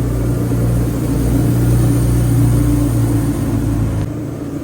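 Wood-Mizer LT40 portable sawmill's engine running steadily with a low hum. About four seconds in the sound drops abruptly and becomes quieter.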